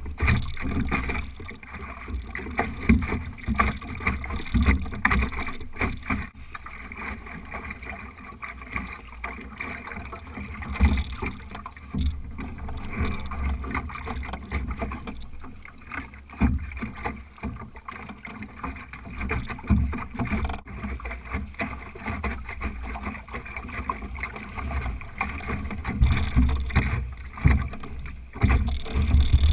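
Water rushing and slapping against a small Optimist sailing dinghy's hull as it sails, with wind buffeting the microphone; the loudness rises and falls unevenly, heaviest in a low rumble.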